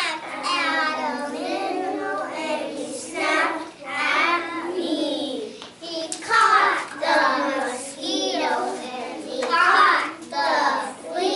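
A group of young children singing a song together in short phrases, with brief breaks between the lines.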